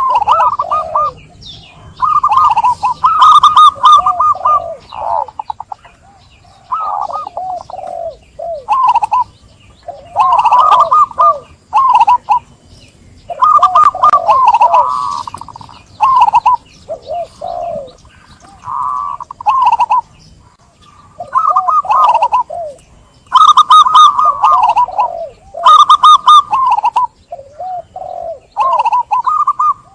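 Zebra dove (perkutut) cooing: phrases of quick, rolling staccato coos, repeated every second or two with short pauses between.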